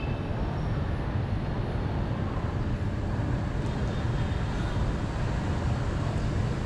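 Steady low rumble of city traffic, an even noise with no distinct events.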